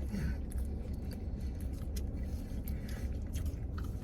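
Steady low rumble of an idling car heard from inside the cabin, with a few faint clicks and rustles scattered through it.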